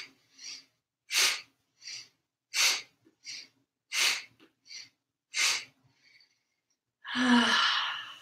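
A woman's quick, forceful breaths through the nose or mouth, paced to yoga twists: a loud, sharp breath and a softer one in turn, a loud one about every second and a half. After a short pause near the end, the breathing gives way to a longer out-breath with her voice in it, which fades away.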